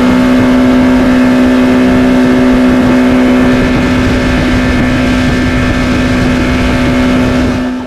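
Boat engine running fast at a steady pitch; the sound cuts off abruptly just before the end.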